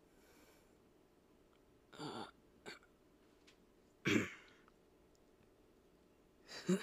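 Three short non-speech vocal sounds from a person's throat and breath, about two seconds in, four seconds in and near the end; the one at four seconds is the loudest.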